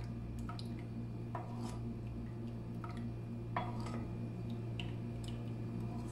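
Wooden spoon stirring a thick yogurt and gram-flour kadhi batter in a pot, with light, irregular clicks and wet squelches as it scrapes and taps, the sharpest twice, about a second and a half in and again past three and a half seconds. A steady low hum runs underneath.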